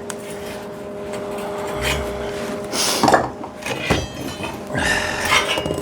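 Clamps and square steel tubing being worked by hand: scattered clinks, knocks and rubbing of metal, over a steady hum that stops about three and a half seconds in.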